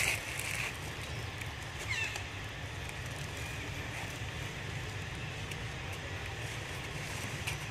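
Steady outdoor background with a low rumble, a brief loud high-pitched call right at the start and a short falling chirp about two seconds in.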